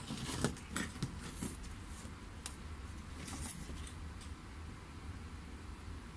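Light clicks and taps of small metal tools against a TV mainboard during hand soldering, scattered through the first four seconds, over a steady low hum.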